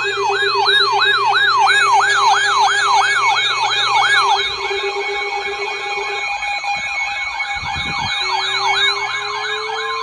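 Several electronic sirens yelping at once, each a fast rising-and-falling wail about four times a second, layered over steady tones. About eight seconds in, a lower tone starts to rise slowly.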